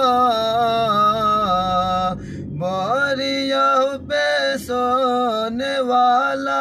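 A man singing an Urdu naat unaccompanied, drawing out long wavering notes with melodic ornaments. He breaks briefly for a breath about two seconds in.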